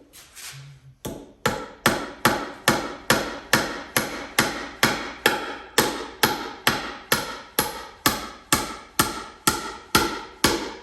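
Claw hammer driving cement-coated sinker nails into rough-cut hardwood: a couple of light taps, then from about a second in a steady run of hard blows, about three a second, each ringing briefly.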